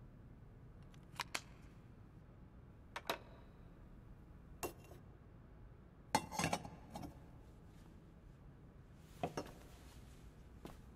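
Small metal clinks and taps of brass candleholder fittings being handled, a few scattered light clicks and a louder cluster of clinks about six seconds in as a pierced brass cover is set down over a candle.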